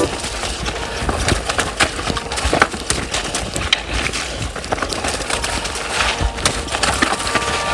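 Mountain bike, a Mondraker Dune XR, clattering over a rough, rocky trail: a steady run of irregular sharp knocks and rattles from the tyres, chain and frame, with wind noise.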